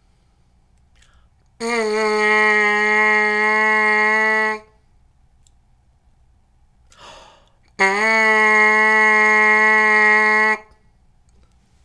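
Trumpet mouthpiece buzzed on its own: two held notes of about three seconds each, both at the same steady pitch, with a quick breath taken between them.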